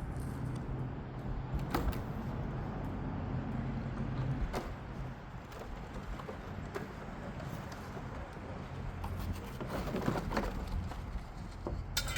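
A few knocks and rustles of large plastic panels and cardboard packaging being handled, over a steady low rumble of wind on the microphone.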